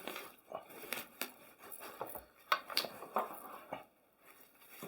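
Scattered light clicks, taps and rustles of a laptop stand docking station and its packaging being handled during unboxing.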